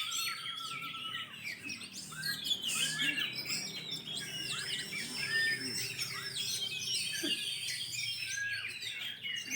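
Several oriental magpie-robins (kacer) singing at once: a dense, overlapping mix of varied whistles, trills and chirps that never pauses.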